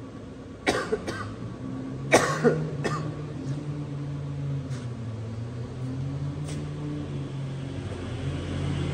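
A person coughing, a cluster of about five short harsh coughs in the first three seconds, the loudest around two seconds in. Under them and after them, a steady low engine hum runs on, drifting slightly in pitch.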